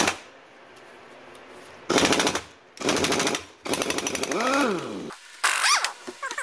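Impact wrench hammering in a series of short, rapid rattling bursts, working the connecting rod cap bolts loose on a rusted outboard crankshaft. The longest burst, a little past the middle, carries a whine that rises and falls.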